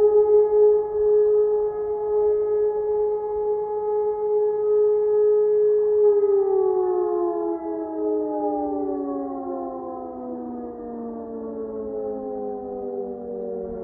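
E57 electromechanical siren sounding a steady tone, then winding down from about six seconds in, its pitch falling slowly in a long dying wail with several falling tones layered. This is a siren test alarm.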